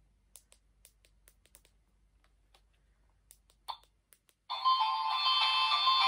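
Faint handling clicks, then about four and a half seconds in a battery-powered plush reindeer toy starts playing an electronic tune. The tune comes through the toy's small speaker and sounds thin, with no bass.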